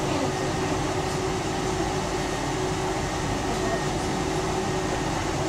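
Tram running along the line, heard on board: a steady rumble of wheels and drive with a constant hum.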